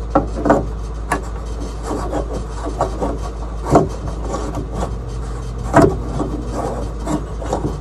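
Small red 50-watt bulb being screwed into a lamp socket by hand: the metal screw base rubs and scrapes in the socket's threads, with a few sharper clicks, over a steady low hum.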